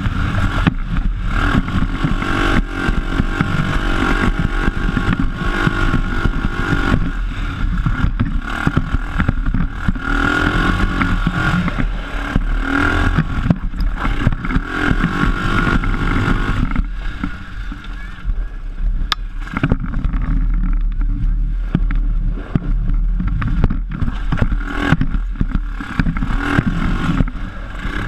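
PGO off-road buggy's engine running under changing throttle while driving over a rough track, with the chassis jolting and rattling over bumps. The engine eases off for a few seconds past the middle, then picks up again.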